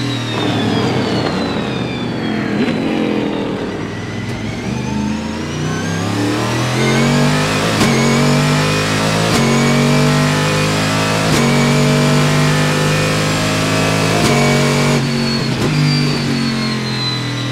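In-car sound of the Panoz Esperante GTR-1's 6-litre V8 race engine. It comes off the throttle with the revs falling for a slow corner, then accelerates hard, climbing through a series of quick upshifts, and the revs drop again near the end as it lifts for the next corner.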